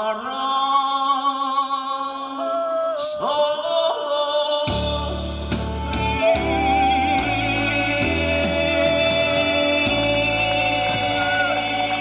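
Trot song performed live: a male singer holds a long note with vibrato over a keyboard backing track. About five seconds in, the fuller backing track with bass comes in.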